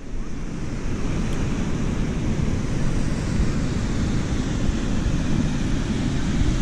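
Steady wind rumbling on the microphone over the wash of surf breaking on a sandy beach.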